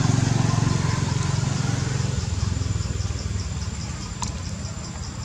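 A nearby engine running with a low pulsing hum that gradually fades away. From about halfway through, an insect chirps in quick, regular high pulses.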